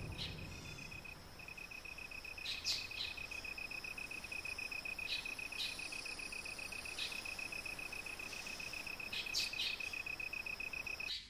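An insect, most likely a cricket, trilling steadily in a fast, even pulse with a short break about a second in. A few brief bird chirps come through over it. The trill cuts off suddenly near the end.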